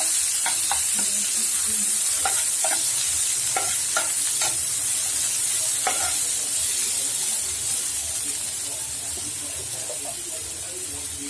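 Onion, ginger-garlic paste and tomato sizzling in hot oil in a pan, with a spatula stirring and knocking against the pan several times in the first half. The sizzle gets gradually quieter toward the end.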